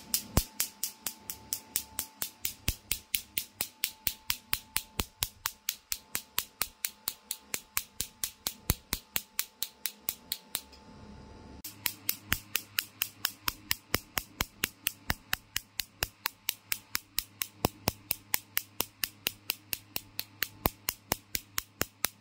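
Picosecond laser handpiece firing on carbon-coated facial skin, each pulse a sharp snap, several a second in an even train, briefly pausing about ten seconds in.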